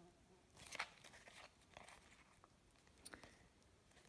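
Faint handling of a stack of oracle cards: a few soft swishes and clicks as the cards are shuffled and slid against each other by hand, the loudest about a second in.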